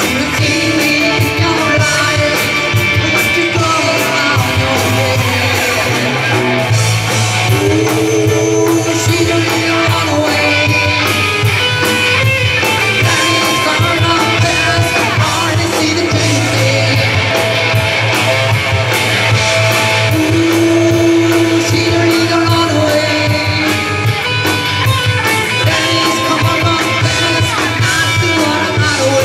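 Live amplified rock band playing a song: electric guitars, bass, drums and keyboard, with a singer holding long notes over a steady bass line.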